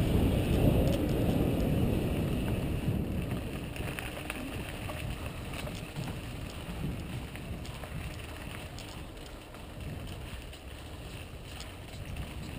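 Wind buffeting a helmet camera's microphone while riding a mountain bike on a dirt trail, with tyre noise on the dirt and small rattles and clicks from the bike. Louder for the first couple of seconds, then it eases off.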